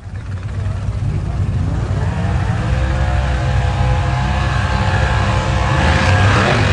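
Drag car's engine running at high revs during a burnout, fading in over the first second and then holding steady, with tyre hiss rising near the end as the rear tyres spin and smoke.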